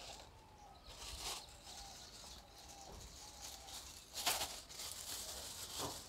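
Plastic packaging of a nylon anti-bird net rustling and crinkling as the bag is handled and opened, faint, with a short crinkle about a second in and a longer stretch of rustling from about four seconds in.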